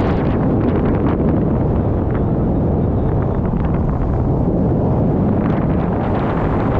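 Wind buffeting the microphone of a pole-mounted camera in tandem paraglider flight: a loud, steady rush.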